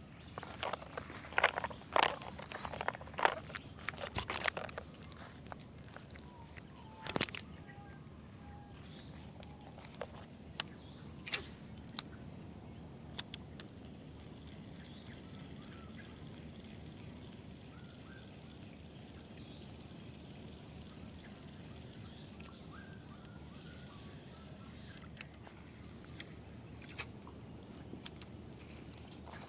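Steady high-pitched chirring of insects. In the first few seconds, and a few times after, there are sharp clicks and taps from steps on gravel and handling of the spinning rod and reel.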